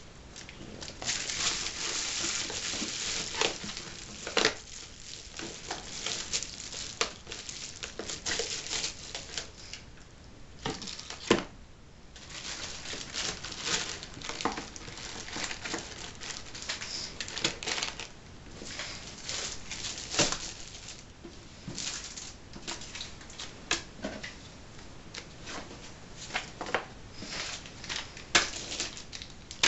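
Bubble wrap and cardboard box packaging being handled: irregular crinkling and rustling, with scattered sharp clicks and knocks, the loudest a little past the middle.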